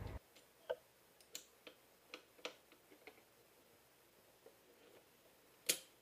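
Near silence broken by a few faint, sharp clicks, with one louder click near the end: small handling noises from work on the coolant hoses and a hose clamp in the engine bay.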